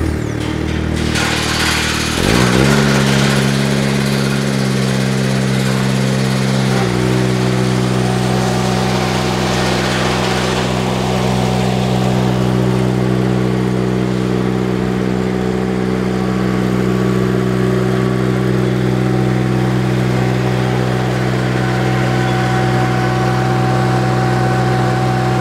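Kubota gas engine of a newly built Ventrac tractor running on its first test start on the assembly line. It revs up about two seconds in, steps up slightly again around seven seconds, then runs steadily.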